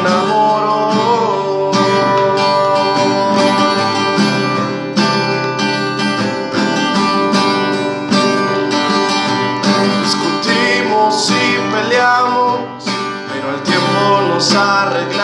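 Cutaway steel-string acoustic guitar strummed steadily, playing the instrumental break of a self-composed ballad.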